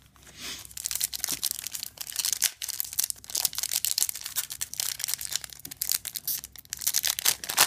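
A foil Yu-Gi-Oh booster pack wrapper being torn open and crinkled by hand: a dense, crackly rustle starting about half a second in.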